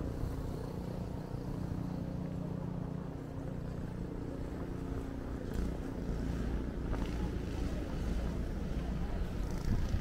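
Motor traffic on a city street: a vehicle engine running as a steady low drone, with a faint pitched hum that fades about halfway through.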